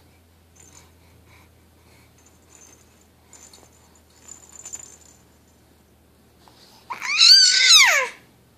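An infant lets out one loud, high-pitched squeal about seven seconds in, its pitch rising and then sliding down, after several seconds of quiet with only faint rustling.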